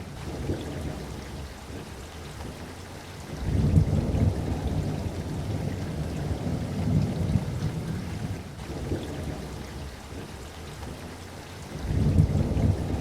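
Steady rain with rolling thunder: low rumbles swell up about three and a half seconds in, again around seven seconds, and near the end.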